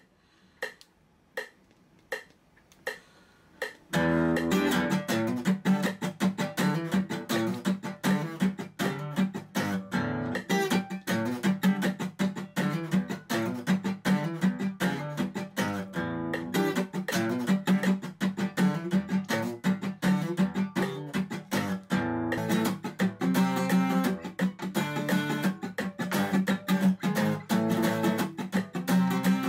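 A few evenly spaced clicks count in, then an acoustic guitar is strummed in a sixteenth-note funk cutting pattern, ringing chords mixed with short muted percussive strokes. About 22 seconds in the playing breaks off briefly and a second cutting exercise begins.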